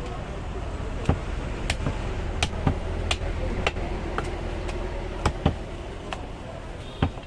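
Heavy butcher's cleaver chopping a goat leg on a wooden block: about eleven sharp, irregular chops, roughly one every half second, over steady background noise.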